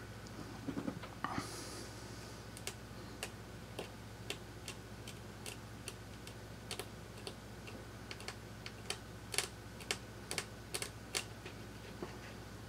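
Sharp, irregular little clicks and ticks, one or two a second and bunching up near the end, as a fine blade scrapes delaminated material off an iPhone 6 Plus logic board around damaged traces. A steady low electrical hum runs underneath.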